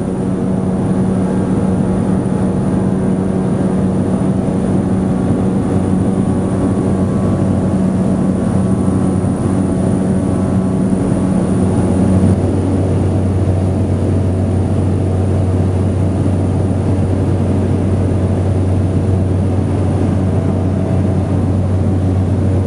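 Cabin noise of a small propeller plane climbing shortly after takeoff: a loud, steady engine and propeller drone. About twelve seconds in, its upper tone drops away and a lower drone takes over.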